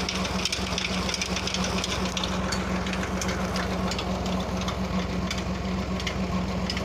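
Tractor's diesel engine running steadily under load, driving a tubewell pump, with a constant low hum and a steady hiss over it.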